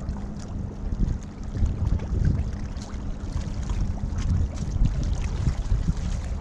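Wind buffeting the camera's microphone in uneven gusts, over water lapping at the rocks.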